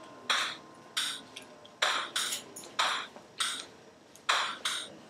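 Synthesized sounds from a MobMuPlat (Pure Data) patch on a phone, set off by hand gestures: about eight short, bright hissing hits at an uneven pace, each dying away quickly, like shaker or hi-hat strokes.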